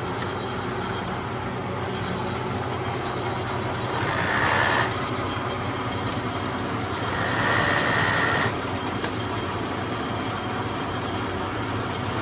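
Kearney & Trecker Model 2K horizontal milling machine running steadily, with two louder rapid traverse moves of the table, each about a second long, carrying a high gear whine.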